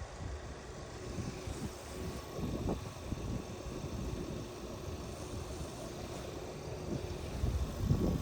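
Volkswagen 1.8 TSI four-cylinder engine running steadily, with no misfire so far after a new camshaft adjuster (variable valve timing) solenoid was fitted. A few irregular low thumps come through, louder near the end.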